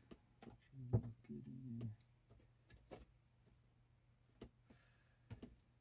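Scattered light plastic clicks and knocks of an APC RS1500 UPS's casing and battery-compartment door being handled and fitted back on, with a short low hum about a second in.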